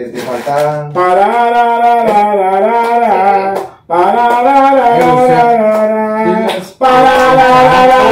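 A voice singing a slow melody in long held notes, in three phrases with short breaks for breath between them; hardly any drum strikes are heard.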